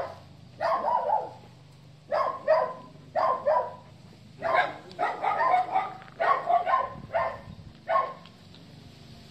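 Dog barking repeatedly in short sharp barks, mostly in twos and threes, stopping shortly before the end.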